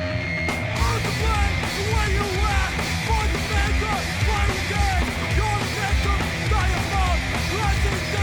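Hardcore punk song played from a 7-inch vinyl record: fast distorted guitars and pounding drums, with shouted vocals coming in about a second in.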